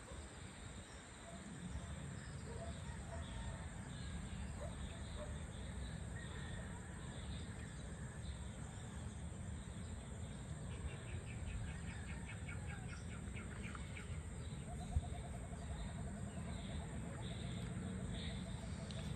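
Outdoor evening ambience of birds calling and chirping. Halfway through comes a fast rattling trill, then a lower pulsed call, over a steady low rumble, with one sharp tick about three-quarters of the way through.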